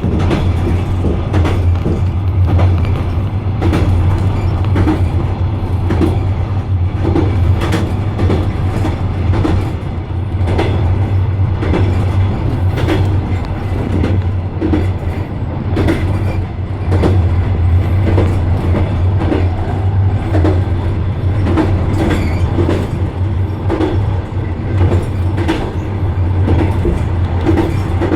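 Passenger train running at speed, heard from aboard: the wheels clatter over the rail joints in repeated sharp clicks, over a steady low rumble.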